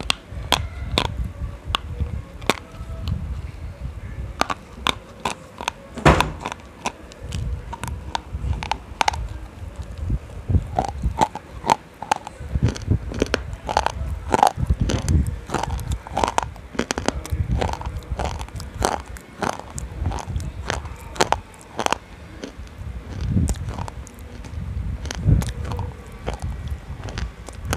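Close-miked biting and crunching of a hard, chalky black lump: irregular sharp cracks and crunches, with chewing between them.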